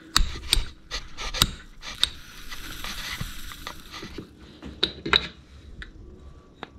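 Sharp metal clicks and knocks with a scraping rub in the middle as a Peugeot 205 GTI piston and connecting rod are joined against a bench vise: a frozen gudgeon pin is slipped into the heated small end of the rod, a shrink fit with no clips.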